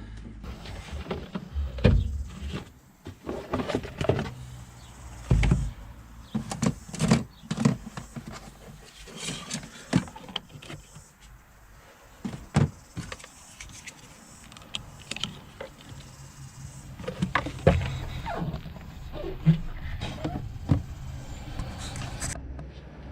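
Irregular clicks, knocks and a few heavier thumps of hand work on a car, at an uneven pace.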